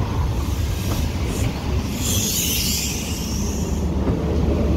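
Passenger coaches of a diesel-hauled train rolling past close by: a steady rumble of wheels and bogies on the track.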